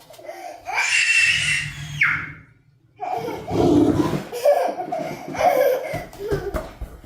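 People laughing hard in loud bursts, with a high-pitched cry about a second in.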